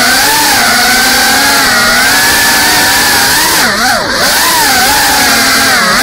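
GEPRC CineLog35 cinewhoop FPV drone's brushless motors and ducted propellers whining at high throttle, the pitch wandering up and down as it manoeuvres. About four seconds in, the pitch drops sharply and climbs straight back.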